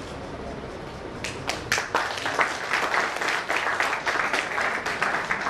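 Audience applauding: many people clapping, starting about a second in and keeping on steadily.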